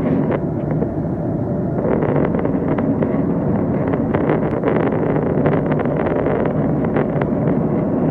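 Steady roar of a jet airliner's engines and rushing air heard from inside the cabin in cruise flight, with scattered light clicks on top.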